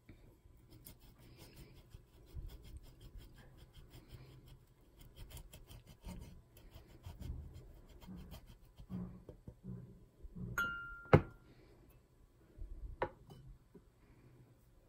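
A block of hard cheese rasped over a metal grater in quick repeated scraping strokes. About eleven seconds in there is a sharp knock with a brief ring, and a lighter knock near thirteen seconds.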